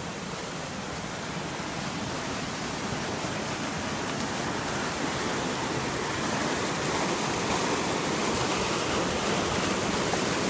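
Creek at full flood: a steady rush of fast-moving floodwater, gradually getting louder.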